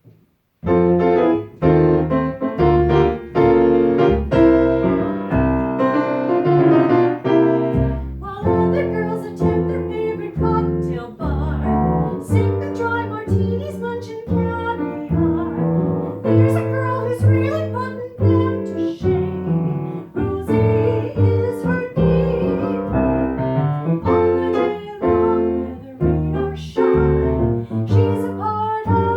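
Piano and bass playing a 1940s swing tune, starting about half a second in with a steady beat.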